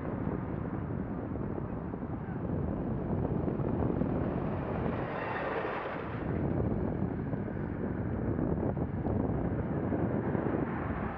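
Wind rushing over a bicycle-mounted camera's microphone while riding at about 10 mph, mixed with road and traffic noise, swelling briefly about five seconds in.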